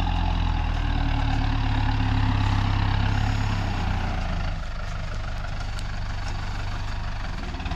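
Heavy diesel engine running steadily, a low drone that drops a little in level and grows rougher about four and a half seconds in.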